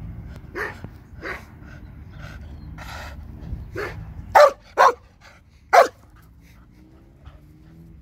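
Small dog barking: a few softer barks, then three sharp, loud barks a little past the middle.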